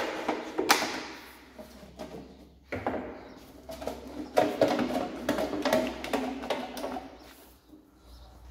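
Sheet-metal downspout pipe being slid by hand over the steel mandrel of a pipe seaming machine: metal scraping and rattling, with several sharp knocks, the loudest about half a second in and again about four and a half seconds in.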